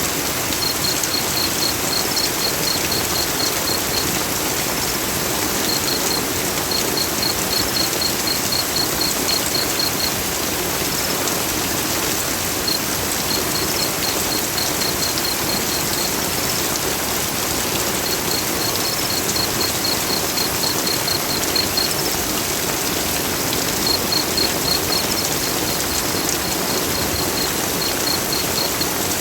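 Heavy rain falling steadily, a dense, even hiss. Over it, runs of high, evenly spaced chirps, about four a second, come and go several times.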